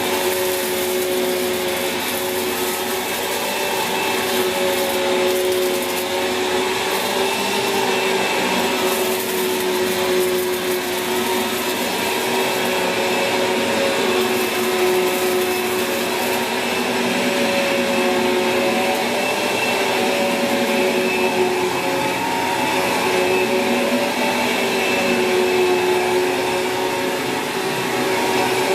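Sanyo SCA-7AX upright bagged vacuum cleaner running steadily on carpet, a continuous motor whine over rushing air, its note wavering slightly in pitch.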